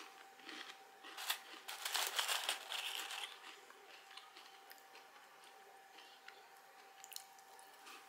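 Butter cookie being bitten and chewed, with crackly crunching for about two seconds starting a second in, then only a few faint crumbly clicks.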